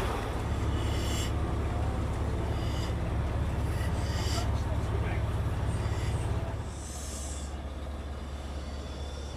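Hunslet diesel shunting locomotive's engine running with a steady low rumble, with a few brief high-pitched sounds over it. The rumble drops in level about six and a half seconds in.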